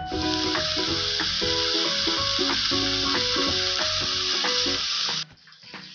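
Cubes of pork belly sizzling in a frying pan, a steady hiss that cuts off suddenly about five seconds in.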